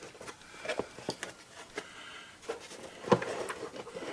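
A cardboard shipping box being opened by hand: scattered rustling, tearing and clicks, with a louder knock about three seconds in.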